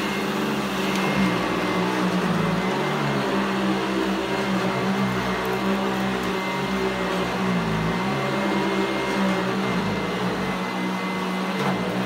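Eureka ESP triple-filtration upright vacuum cleaner running, being pushed over a rug; its steady motor hum wavers a little in pitch and dips briefly about eight seconds in.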